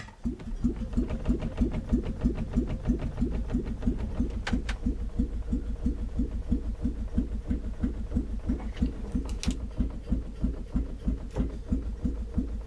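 Starter motor cranking an old car engine, a steady chugging rhythm of compression beats with no firing: the engine turns over but does not catch. The owner finds that spark reaches the points but not the plugs.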